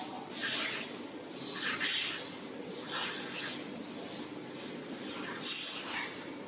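Polishing machine's buffing wheel hissing in short repeated strokes, every second or two, as toilet-seat and cover edges are pressed against it, over a steady machine hum.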